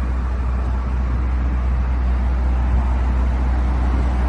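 Steady low hum and rumble of running machinery, unchanging throughout.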